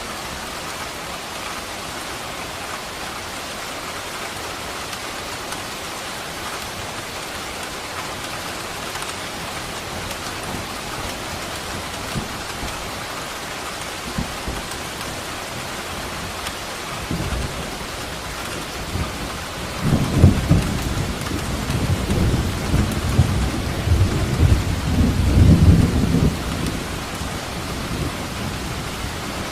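Steady heavy rain falling, with a rolling rumble of thunder that builds about two-thirds of the way in, swells for several seconds and fades back into the rain.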